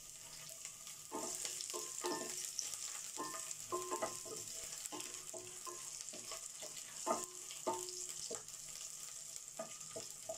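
Sliced onions sizzling in a little hot oil in a wok. From about a second in, a wooden spatula stirs them, scraping and knocking against the pan many times.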